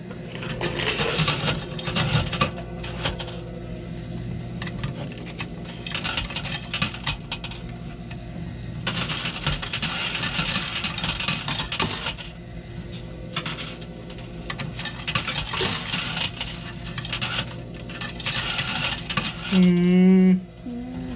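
Quarters clinking and jingling in a coin pusher machine as coins are fed in and shoved across the heaped playfield, in bursts with short lulls, over a steady hum. A brief loud pitched sound comes near the end.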